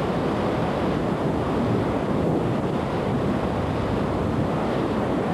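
Fire from a ruptured 15-inch high-pressure gas feeder line, the escaping gas and flames burning with a steady rushing noise.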